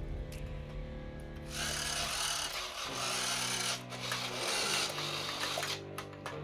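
Background music of steady held chords that change about three seconds in and again near the middle, with two stretches of scratchy, rasping noise over them.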